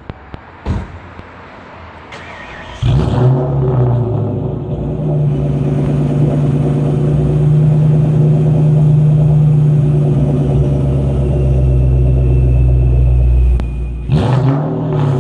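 Supercharged 4.6-litre DOHC V8 of a 1997 Mustang Cobra, heard through an SLP Loudmouth exhaust, starting up about three seconds in. It flares, then runs at a raised, steady speed for about nine seconds, drops near the end and is blipped once.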